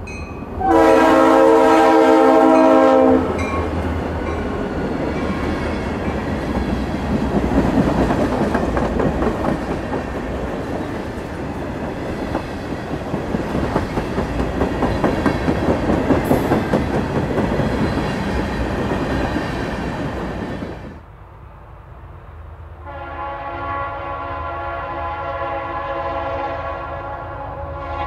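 A Leslie RS3L three-chime air horn on a Norfolk Southern locomotive sounds one loud chord of about two and a half seconds, starting about a second in. Freight cars then roll past, with steel wheels clattering over the rail joints. Near the end, after a cut, another RS3L horn sounds a quieter chord from an approaching locomotive.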